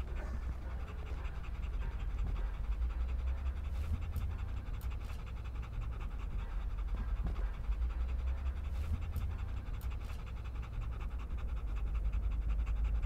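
A German shepherd-type military working dog panting fast and steadily, over a steady low rumble.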